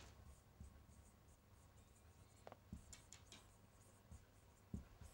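Marker pen writing on a whiteboard: a handful of faint, short squeaks and taps as the words are written.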